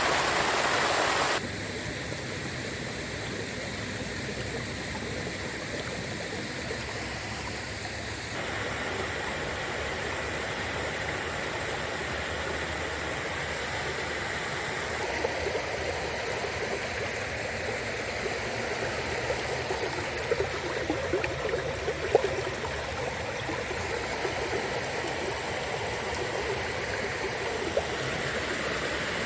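Shallow river babbling and gurgling steadily over its bed. A louder rush of water cuts off about a second in, and from about halfway on small sharp splashes stand out from the flow.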